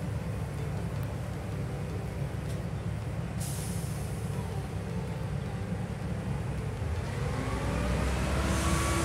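Water-well drilling rig's engine running with a steady low rumble; about seven seconds in it speeds up, rising in pitch and getting louder. A short hiss of air comes about three and a half seconds in and again near the end.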